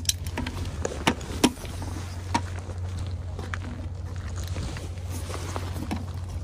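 A plastic bucket on a rope being tossed over a quay railing and lowered into seawater: two sharp knocks between one and one and a half seconds in and a lighter one a second later, over a steady low rumble.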